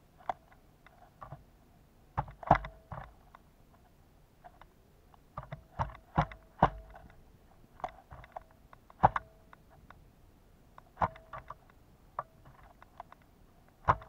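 Pileated woodpecker pecking at suet in a wire cage feeder: irregular sharp knocks, some in quick clusters, a few followed by a brief ringing tone.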